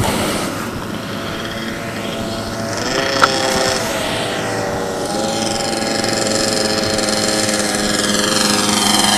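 Remote-control P-51 Mustang model plane's engine running in flight, its pitch shifting with throttle about three and five seconds in, growing steadily louder as the plane comes in toward the microphone. A short click a little over three seconds in.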